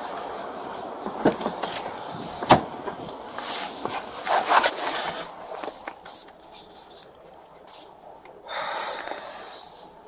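Handling noise from a body-worn camera as the officer walks and gets into a patrol car: clothing rustle and footsteps with a few sharp clicks and knocks in the first half. After that the sound drops to the quieter inside of the car, with a short hiss near the end.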